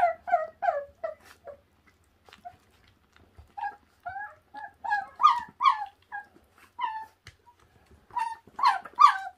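Puppies whining and yipping while they crowd together over raw meat: many short squeals that fall in pitch, in bunches at the start, in the middle and again near the end.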